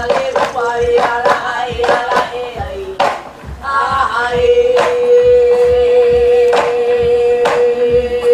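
Hula chant sung to a steady drumbeat. From about four seconds in, the chanter holds one long steady note while the drum strokes go on.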